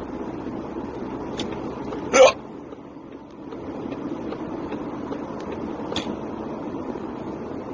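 A single loud, short hiccup about two seconds in, over the steady low rumble of car road noise inside the cabin. There are a couple of fainter short clicks before and after it.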